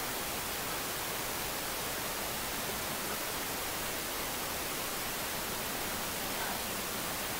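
A steady, even hiss with no other sounds in it.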